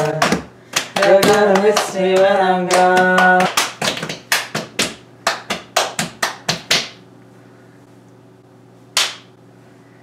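Two people doing a hand-clapping game: quick, evenly timed hand claps with a sung chant over the first few seconds, the clapping going on alone and stopping about seven seconds in. A single short breathy burst near the end.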